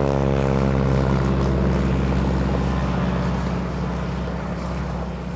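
North American SNJ-5 Texan's nine-cylinder Pratt & Whitney R-1340 Wasp radial engine and propeller running hard as the plane climbs out after takeoff, a steady rasping drone that fades from about three and a half seconds in as it flies away.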